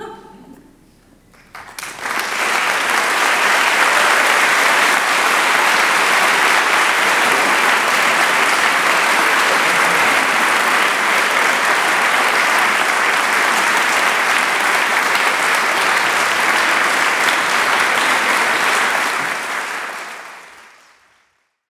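Audience applauding. The applause breaks out about two seconds in, holds steady and loud, then fades out near the end.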